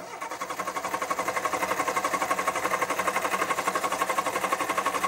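Reliant Kitten's four-cylinder engine cranking on the starter motor with a fast, even pulsing, not yet firing: the fuel pump has not yet drawn fuel up to the carburettor.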